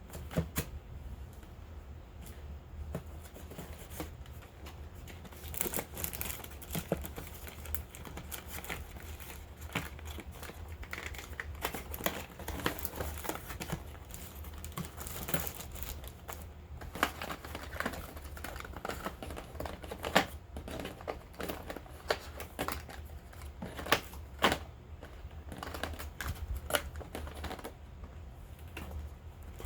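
Hands unboxing and handling packaging and cosmetic products: irregular crinkling, tapping and small clicks, a few sharper taps among them, over a steady low hum.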